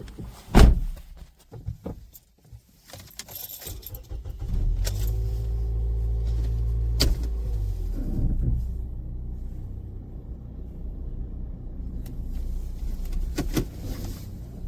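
A car: a sharp knock and a few clicks and jingles, then from about four seconds in an engine running steadily with a low rumble, easing off a little about halfway.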